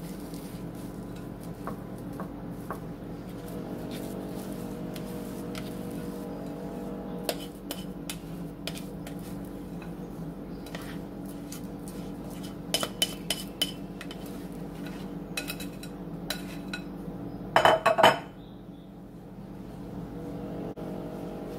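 A plastic serving spoon scraping and tapping against a bowl and a baking dish as soaked stuffing is scooped out and spread, in irregular clicks and knocks, with the loudest scrape and knock near the end. A steady low hum runs underneath.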